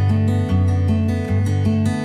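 Background music: an instrumental led by guitar, with notes changing every half second or so.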